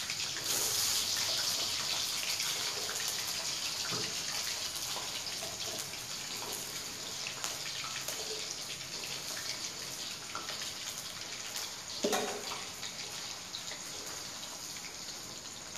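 Diced potatoes frying in hot oil in a wok, a steady sizzle that swells as the pieces go in about half a second in and then slowly eases off. Small crackles throughout, and a knock about twelve seconds in as the pieces are stirred with a spatula.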